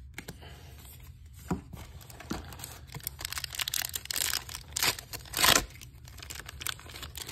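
Foil booster pack wrapper crinkling in the hands and torn open, with its loudest rip about five and a half seconds in. A few light taps of trading cards come first.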